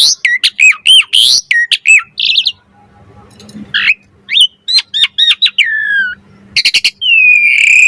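Javan pied starling (jalak suren) singing its pumping song: a fast run of repeated looping whistled notes, about four a second, for two seconds, then after a short pause a varied string of chirps and whistles, a few sharp clicks, and a long, slightly falling whistle near the end.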